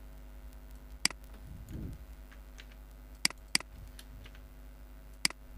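Sparse, sharp clicks of a computer keyboard being typed on: one about a second in, two close together past the three-second mark, and one near the end.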